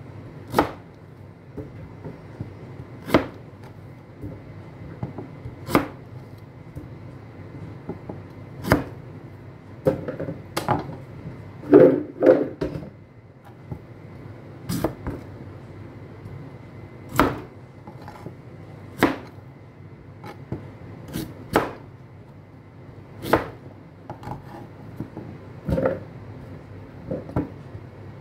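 Chef's knife cutting through raw beetroot and knocking on a cutting board, one sharp chop every two seconds or so, with a quicker, louder run of chops about twelve seconds in.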